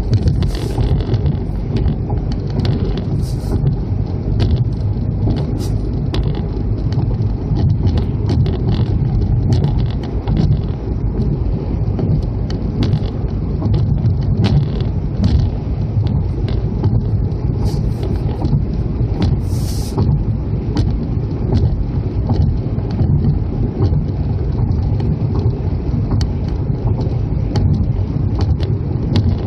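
Steady road and wind noise of a car driving at speed, heard from inside: a low, even rumble with scattered light ticks.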